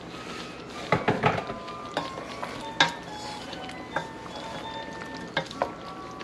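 Wooden spatula stirring a meat-and-vegetable stew in a stainless steel pot, clacking and scraping against the pot's side. There is a quick cluster of knocks about a second in, then single knocks every second or so, over a light steady sizzle from the simmering pan.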